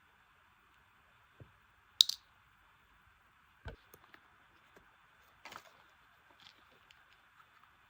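Scattered clicks, taps and brief rustles of small items and packaging being handled, with one sharp click about two seconds in and a dull knock a little before the middle.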